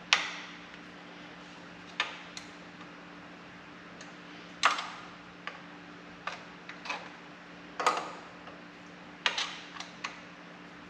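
Irregular sharp clicks and knocks, about ten of them with short ringing tails, as tools and metal parts are handled in a workshop, loudest near the start and about halfway and two-thirds through, over a steady low hum.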